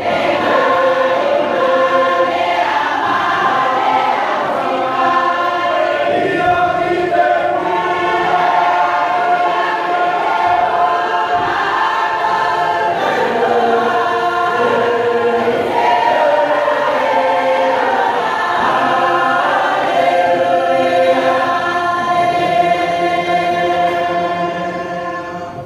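Church congregation singing a hymn in Cook Islands Māori, many voices together holding long notes, dying away at the end.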